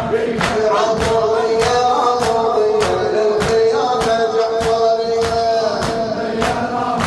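A Shia latmiya mourning chant: male voices holding long sung notes, with a steady beat of sharp strokes just under two a second, typical of mourners' chest-beating (latm).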